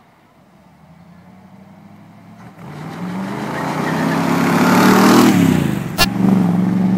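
1957 Chevrolet Corvette's V8 engine driving up and passing close by: it grows steadily louder, peaks, and drops in pitch as the car goes past. A single sharp click cuts across the sound about six seconds in.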